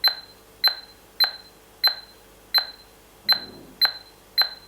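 Touch keypad of an HA802 smart door lock beeping once per key press: about eight short beeps of the same pitch, each with a click, at slightly uneven spacing, as a passcode is keyed in.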